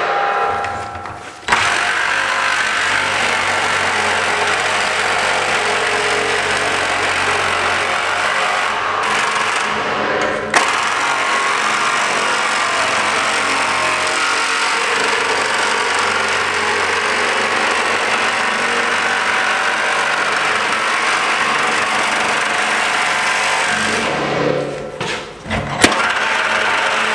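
Cordless reciprocating saw cutting through the steel lid of a 55-gallon drum, a steady harsh buzzing of the blade sawing sheet metal. It stops briefly just after the start and again near the end, each time starting up again with a sharp clack.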